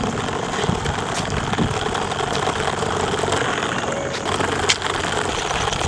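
Small DC motor spinning a plastic propeller on a matchbox toy, a steady whirring buzz, with a few sharp clicks as it runs along the floor on its wheels.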